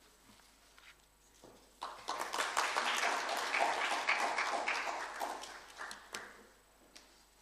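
Audience applauding: it breaks out suddenly about two seconds in and dies away after about four seconds.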